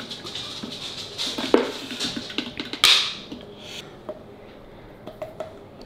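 Plastic protein-powder scoop and shaker cup being handled: light taps and rustles, with a short hiss about three seconds in as powder is tipped into the cup.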